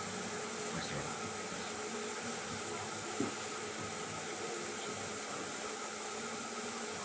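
Steady whirring hiss with a faint hum, like a fan or other small running machine, and one faint click about three seconds in.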